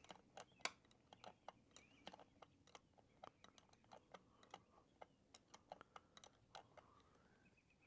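Faint, irregular clicks and taps of a hand wrench on a thermostat-cover bolt as it is worked in a little at a time.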